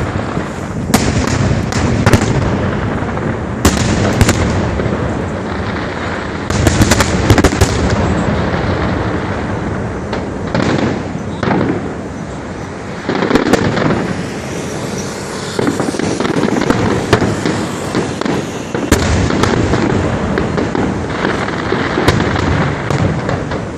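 Fireworks show: a continuous crackle of bursting shells with sharp loud bangs every few seconds.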